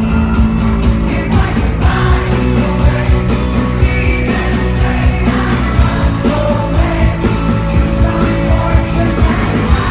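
Live rock band playing with a lead singer: drums keeping a steady beat under guitars and sung vocals.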